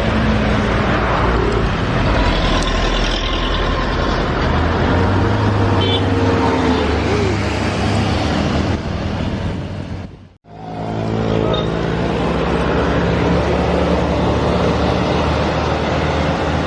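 Heavy vehicles' diesel engines and tyres on a hill road, a steady loud drone with low engine tones. The sound cuts out abruptly about ten seconds in and fades back up.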